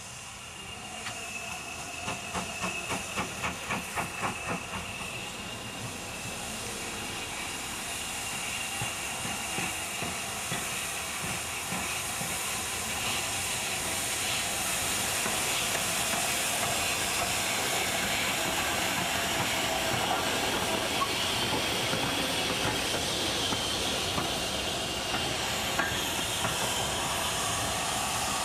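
Great Western Railway Hall-class two-cylinder 4-6-0 steam locomotive No. 4953 Pitchford Hall moving slowly: a short run of steam beats, about three a second, a couple of seconds in, then a steady hiss of escaping steam that grows louder.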